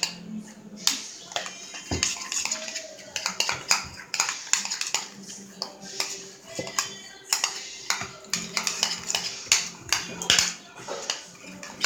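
A utensil stirring glue and detergent into slime in a bowl, with many quick, irregular clinks and scrapes against the bowl as the mixture thickens.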